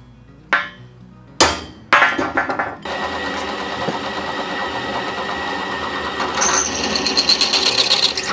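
A few sharp metal clanks, then a pillar drill press running. From about six seconds in, the bit cuts into a metal tube with a fast rhythmic chatter.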